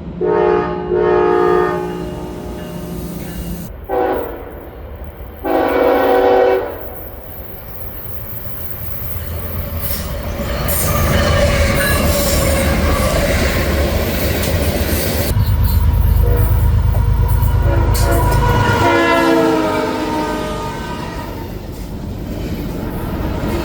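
Diesel locomotive's air horn sounding three chord blasts, the middle one short. The train then passes with a rising rumble and rail noise, the engine's low throb loudest past the middle, and more tonal notes near the end.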